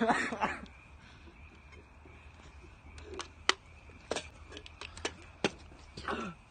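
Beer cans being shotgunned: about ten sharp, quick clicks and taps over a few seconds in the middle, against a quiet background. A voice trails off at the start and a short falling vocal sound comes near the end.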